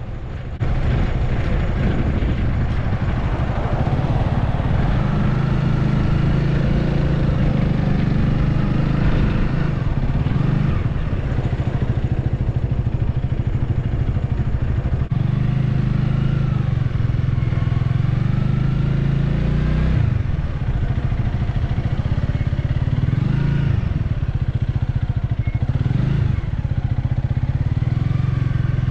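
Honda Rebel 300's single-cylinder engine heard from the saddle while riding slowly. The engine note rises and falls several times with the throttle, with a few sudden drops in pitch, and gets louder about a second in.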